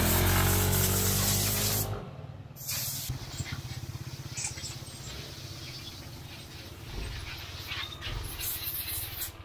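Yamaha NMAX scooter's engine revving as the scooter pulls away, loudest for about the first two seconds, then dropping to a steady, quieter engine hum like an idle.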